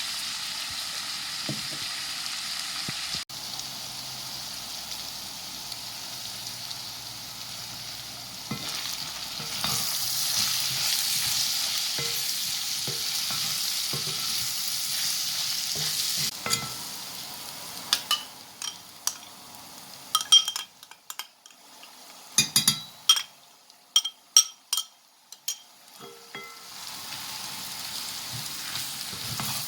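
Food frying in a pan with a steady sizzle, louder from about ten seconds in. Around two-thirds of the way through the sizzle dies down and a quick run of sharp clicks and knocks sounds, then the sizzling comes back near the end.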